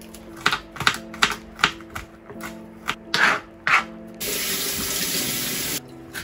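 Kitchen knife chopping garlic on a plastic chopping board: about eight separate sharp knocks over the first four seconds. Then a loud, steady rushing noise for about a second and a half, which cuts off suddenly. Background music plays throughout.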